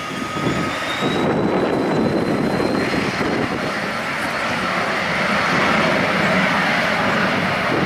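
Cessna Citation CJ2+ business jet's twin Williams FJ44 turbofans running up: a thin whine that rises slowly in pitch, over a roar that grows louder about a second in and then holds steady as the jet rolls along the runway.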